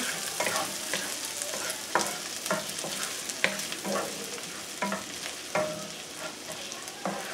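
Chopped garlic and ginger sizzling in hot oil in a frying pan, with a steady hiss and irregular scrapes and taps of a wooden spatula against the pan as they are stirred.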